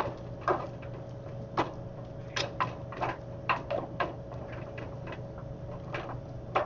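A spoon beating choux-paste gnocchi dough in a metal saucepan, knocking against the pan in irregular strokes about one or two a second, as egg is worked into the dough.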